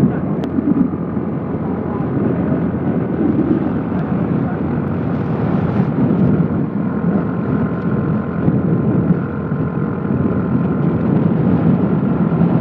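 Steady engine and road noise of a vehicle driving along a paved highway.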